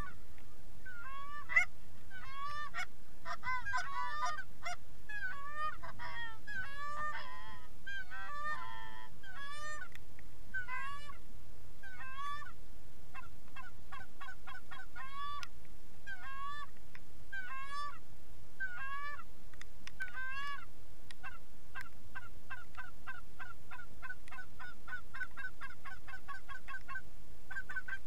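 Canada goose honks and clucks in a long, close series, quickening about three-quarters of the way in into a fast, even run of short clucks, about five a second.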